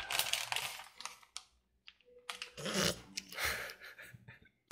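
Crinkling plastic bag of shredded cheese and rustling as the cheese is shaken out by hand, in uneven bursts with short pauses, with a duller handling bump a little past the middle.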